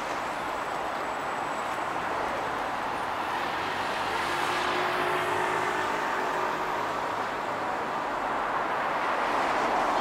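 Street traffic: cars and a van driving past at low speed, a steady rush of engines and tyres, growing a little louder near the end as a bus pulls in.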